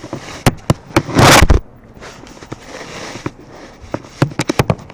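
BOOMco toy dart pistol being cocked and fired: a few sharp clicks, then one very loud burst of noise a little over a second in, and a quick run of clicks near the end.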